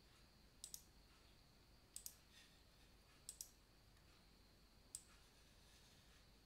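Faint computer mouse button clicks: a single click, two quick double-clicks, then another single click, over a low steady background hiss.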